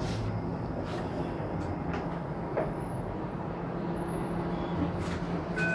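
TTC Flexity Outlook streetcar in motion, heard from inside: a steady low rumble and hum with a few short clicks. A steady high tone starts right at the end.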